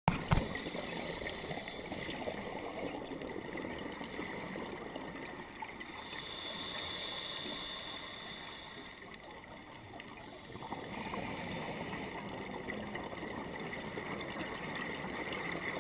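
Scuba diver breathing through a regulator, heard underwater through a GoPro dive housing: bubbling, gurgling exhalations, with a smooth hiss of about three seconds near the middle.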